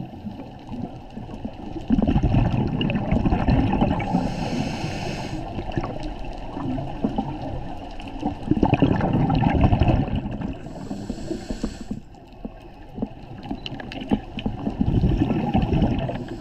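Scuba regulator breathing, recorded underwater: three long bursts of exhaled bubbles gurgling past, with the higher hiss of an inhalation through the regulator between them.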